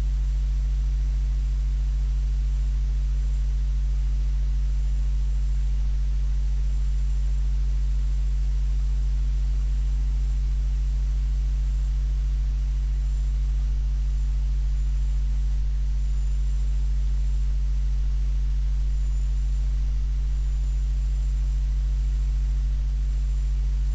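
Steady low electrical hum with a faint hiss, unchanging throughout, with no speech.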